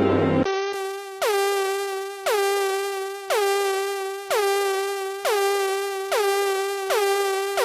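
Electronic music: a single synthesizer note struck about once a second, each hit swooping down in pitch onto the same held tone. It starts abruptly about half a second in, when louder, denser music cuts off.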